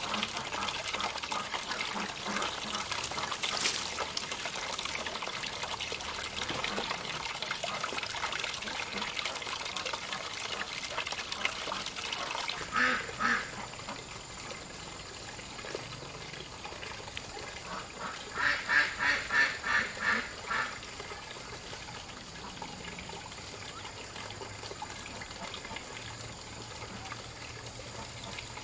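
Water running for the first dozen seconds, stopping abruptly. Then ducks quacking: two quacks, and a few seconds later a quick run of about seven quacks.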